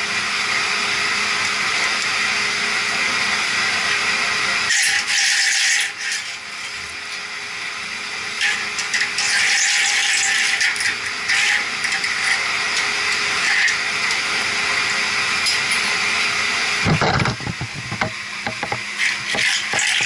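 Steady running drone of the plant's water pumps and chillers. Over it come scrapes and knocks of a metal conduit working a mesh strainer basket out of a pump's strainer housing, with a louder scraping clatter near the end as the basket slides out.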